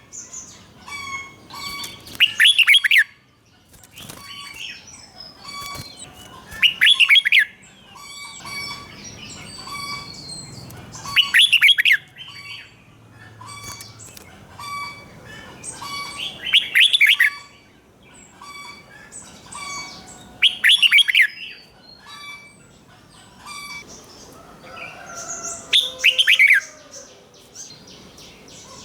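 Red-whiskered bulbul singing its doubled ('beul') song, with a loud, quickly warbled phrase about every four to five seconds and softer short chirps repeating between the phrases.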